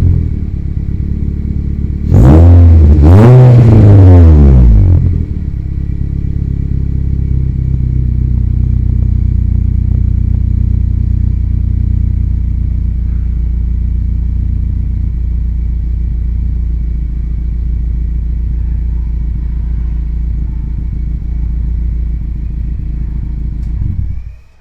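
2016 Honda City's four-cylinder engine through a full aftermarket exhaust with a Spoon N1 muffler: idling, blipped twice in quick succession a couple of seconds in, each rev rising and falling back, then settling to a steady idle. The sound cuts off near the end.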